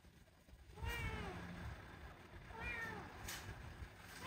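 Kitten meowing twice, two short calls that rise and fall in pitch.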